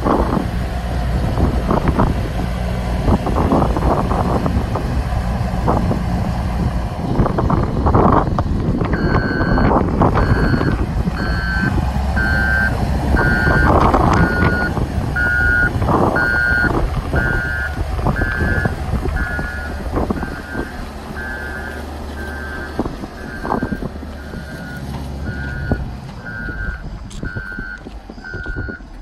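Caterpillar 950G wheel loader's diesel engine running as the machine moves. About a third of the way in, its backup alarm starts beeping steadily, about one beep every 0.8 s, as it reverses. The engine grows quieter toward the end.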